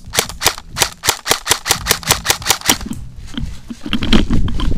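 Airsoft rifle firing a fast string of single shots, about six a second, for roughly three seconds. The shots give way to a louder rumbling rustle of movement near the end.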